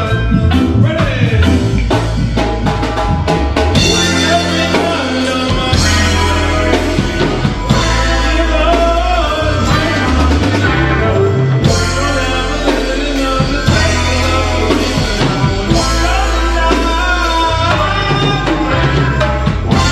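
Roots reggae band playing live: drum kit with a heavy bass line under guitar and keys.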